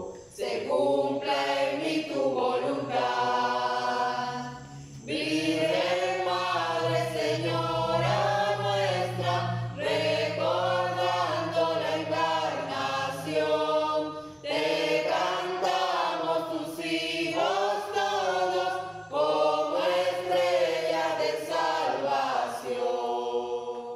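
Small mixed choir of men and women singing a Spanish Marian hymn of the Annunciation, in phrases with short breaks between them, ending near the close.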